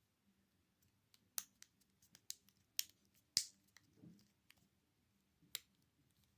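Sharp clicks and taps of small repair tools and smartphone parts being handled and fitted during reassembly: about half a dozen distinct clicks, the loudest about three and a half seconds in.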